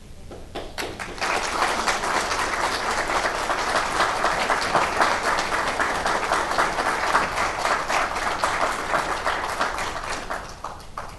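An audience applauding. A few separate claps come first, the clapping fills in within about a second, holds steady, and dies away near the end.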